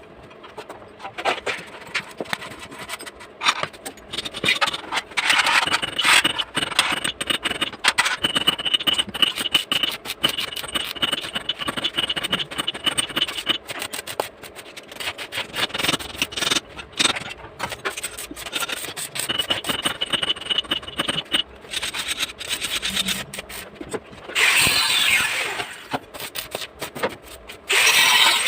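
Metal machine parts and tools knocking, clinking and scraping while a tobacco-shredding machine is assembled, with a steady high whine twice for a few seconds and two louder rushing bursts near the end.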